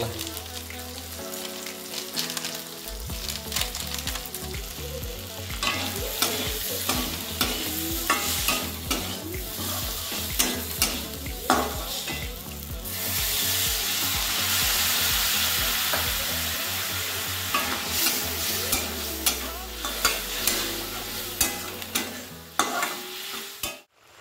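Spiced onion-tomato masala frying in oil in a metal kadai: a steady sizzle with many short scrapes and taps of a spatula stirring it against the pan. The sizzle grows louder for a few seconds around the middle.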